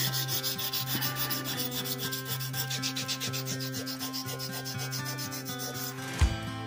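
Background music: held chords over a fast, even shaker-like tick, with a steady drum beat coming in near the end.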